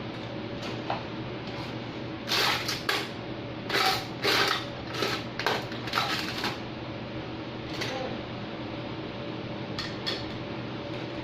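Hard parts clinking and clattering as they are handled, in a quick cluster a couple of seconds in and twice more near the end, over a steady low machine hum.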